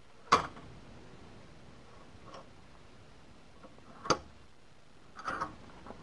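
Hand file clicking and scraping against a ground-down Allen wrench held in a bench vise: two sharp metal clicks about four seconds apart, then a brief scrape near the end.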